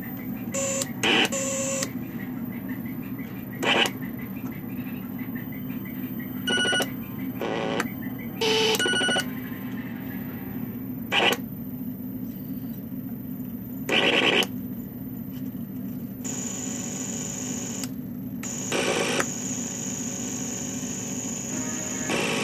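Homemade electronic noise synth with lit push-buttons: a steady low buzzing drone, broken by about ten short, loud bursts of noise and beeps as buttons are pressed. A thin, high steady tone joins about two-thirds of the way through.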